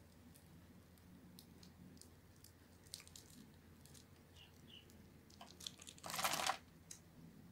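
Scored white Lifebuoy bar soap crunching as fingers break the cut cubes loose: scattered small crisp crackles, then a louder burst of crunching about six seconds in.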